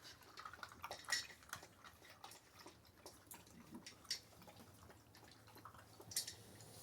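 Central Asian Shepherd puppy lapping water from a bowl: faint, irregular wet clicks and splashes.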